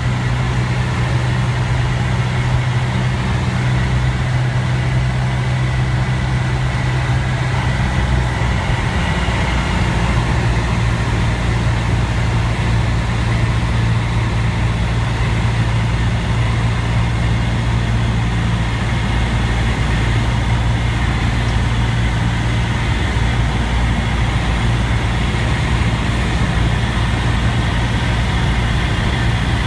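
Cessna 172's piston engine and propeller droning steadily at reduced power on final approach, heard inside the cabin with airflow noise. The drone's pitch drops slightly about nine seconds in.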